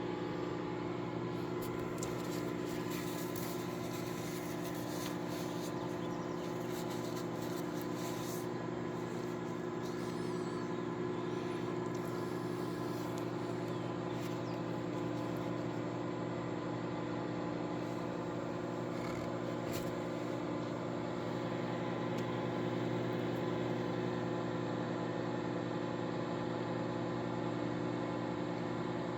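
Microwave oven running with a steady hum while an egg fries inside it, with a few faint ticks in the first several seconds.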